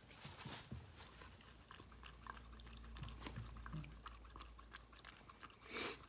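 Jack Russell terriers licking and lapping up A38 soured milk: faint, scattered wet smacking clicks, with a brief louder puff of noise near the end.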